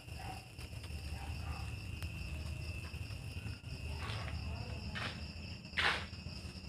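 Crickets trilling steadily at one high pitch over a low rumble of handling noise. A sharp knock near the end is the loudest sound.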